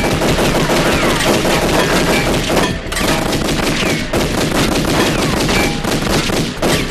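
Sustained gunfire from several police pistols, dense overlapping shots with short falling whines among them, letting up briefly about 3 seconds in and again about a second later.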